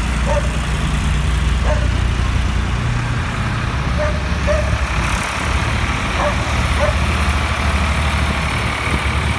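Vintage tractor engines running as the tractors drive by one after another: first a Massey Ferguson 135, then a blue Fordson coming up and passing. A steady low engine note runs throughout.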